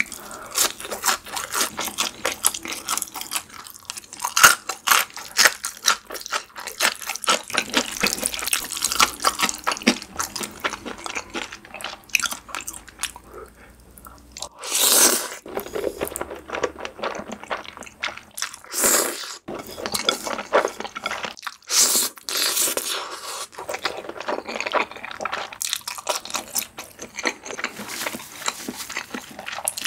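Crunchy chewing of a fried onion ring, a dense run of rapid crisp crunches. About halfway through come several loud slurps of creamy spaghetti, a second or so each, with wet chewing in between.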